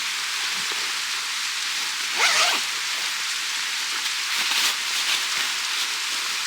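Food sizzling steadily in a pan, with a short sharp call about two seconds in.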